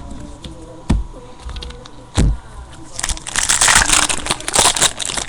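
Two dull thumps, then a couple of seconds of loud crinkling and tearing as the foil wrapper of a baseball card pack is ripped open.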